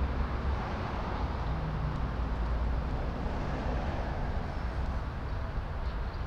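Steady outdoor background noise with a strong low rumble.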